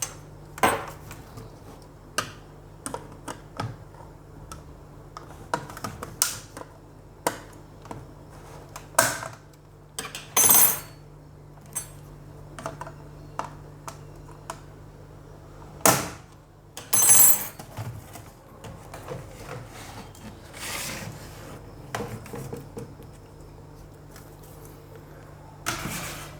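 Irregular clicks, taps and a few longer scrapes of a laptop's plastic and metal parts being handled and worked with small tools while it is taken apart.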